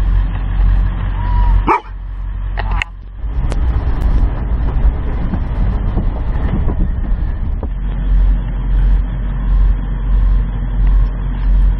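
Low rumble of a pickup truck running, heard from inside the cab, swelling and easing about once a second in the second half. A few brief high-pitched sounds come in the first three seconds.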